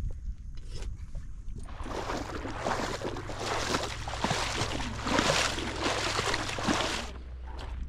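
Footsteps wading through shallow water, each step splashing and sloshing, in a dense run that starts about two seconds in and stops shortly before the end.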